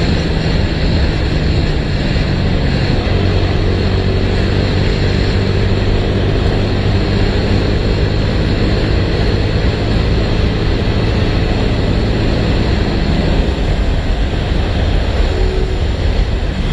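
Motorcycle being ridden at steady speed: heavy wind rush on a helmet-camera microphone over a steady engine drone, whose note drops about three seconds in.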